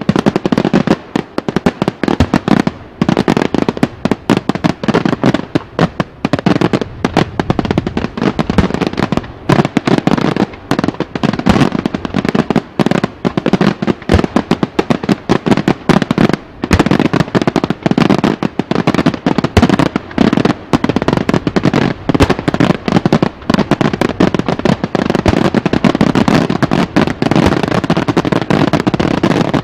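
Daytime fireworks: a dense, rapid run of aerial shell bursts and firecracker bangs, many reports a second without a break.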